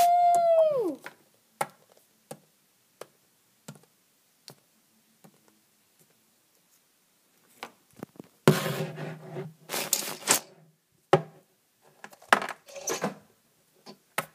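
Small plastic Littlest Pet Shop figures tapped along a hard floor in scattered light clicks, with a couple of seconds of rustling and knocking from about eight seconds in as the toys are handled. It opens with the end of a loud, high, held voice-like howl that falls in pitch and stops about a second in.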